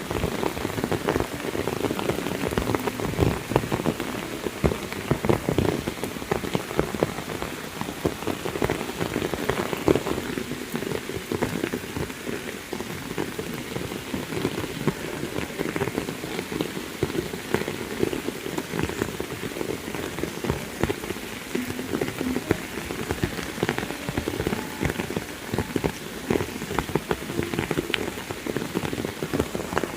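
Heavy rain falling steadily, a dense patter of countless drops striking nearby surfaces.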